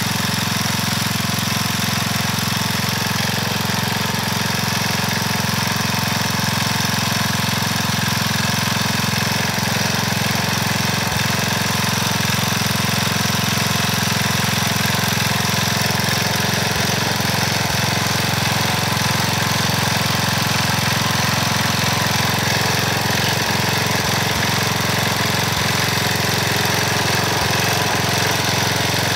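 Small single-cylinder gasoline engine of a front-tine garden tiller running steadily while its tines churn through dry garden soil.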